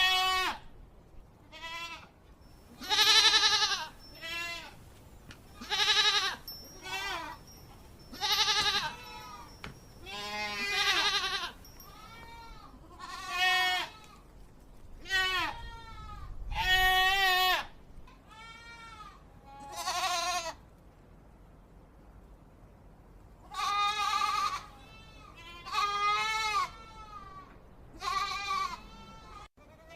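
Goats bleating: a string of about twenty separate calls, each wavering up and down in pitch, with a pause of a few seconds about two-thirds of the way through.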